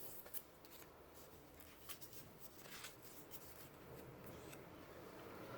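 Faint handling of paper sticker sheets: soft rustling with a few light scattered ticks.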